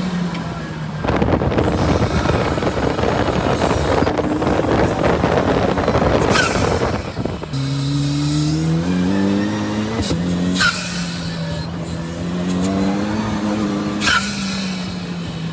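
Ariel Atom's turbocharged engine accelerating hard under heavy wind rush, then its engine note rising and holding steady. Short sharp turbo flutter chirps come three times as the throttle lifts, about six and a half, ten and a half and fourteen seconds in.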